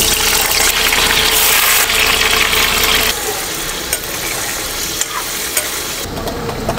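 Paneer cubes frying in hot oil in a steel kadai, sizzling, while a steel ladle stirs them and clicks against the pan a few times. The sizzle is loudest for about the first three seconds, then drops to a lower level.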